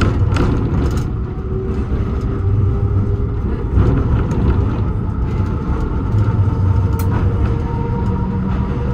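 Tram running over street track through a junction, with a steady low rumble and a couple of sharp clacks as the wheels cross the switches and crossings. A traction-motor whine rises slowly in pitch as the tram gathers speed.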